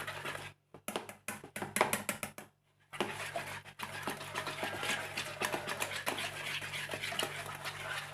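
Wire whisk beating a thick flour batter in a bowl. A few scattered taps and a short pause give way, about three seconds in, to a steady, fast run of scraping and clicking.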